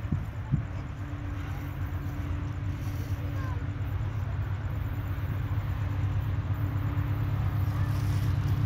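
Diesel locomotive of an approaching freight train running with a steady low drone that slowly grows louder as it nears. Two brief knocks in the first half second.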